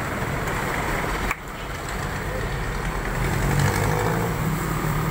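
Steady city street traffic noise, with a vehicle engine's low rumble growing louder in the second half. The sound drops out for an instant a little over a second in.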